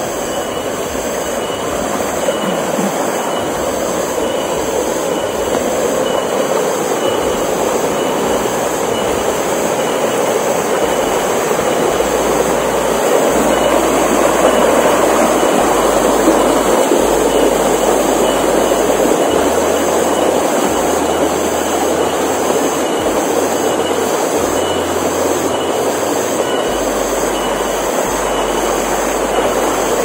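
Shallow rocky stream rushing and splashing over boulders in small cascades: a steady rush of water, a little louder toward the middle.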